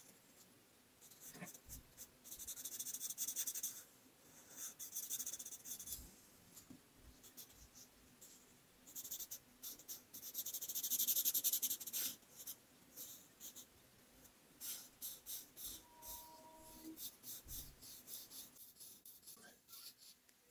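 Art marker tips rubbing across paper while colouring: several long scratchy passes, the longest and loudest lasting about two seconds, between runs of short quick strokes and light taps.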